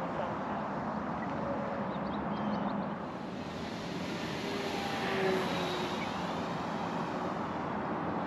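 Steady outdoor wind noise on the microphone, with the faint whine of the RC glider's electric motor and propeller overhead near the middle.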